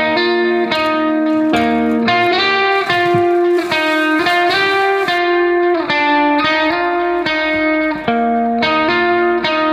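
Background music led by a plucked guitar, with notes and chords changing at an even pace.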